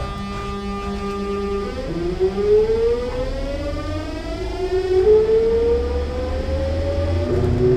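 Sotetsu New 7000 series train's VVVF inverter and traction motors, heard from above them in the car, pulling the train away: a steady multi-note whine for about a second and a half, then a whine that rises in pitch, drops back and rises again as the train accelerates, over the low rumble of the running gear.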